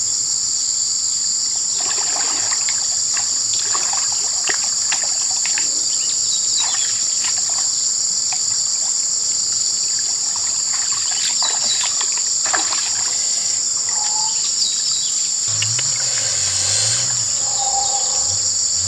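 Loud, steady chorus of insects, with splashing and sloshing as hands feel through shallow muddy water, and a couple of short bird calls in the second half.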